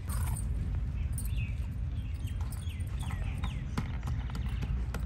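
Two sharp knocks near the end from a wooden pestle pounding cashews on a wooden chopping board, with a run of short, falling bird chirps before them, all over a steady low rumble.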